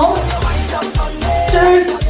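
Cook Islands pop song with a fast drum beat and a melody line over it.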